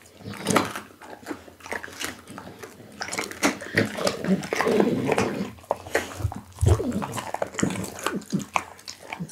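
Pit bull chewing raw beef close to a microphone: wet, smacking chews with irregular sharp clicks and crunches.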